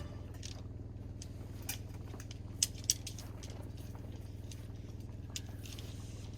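A steady low hum with scattered light clicks and taps, two sharper clicks close together just under three seconds in.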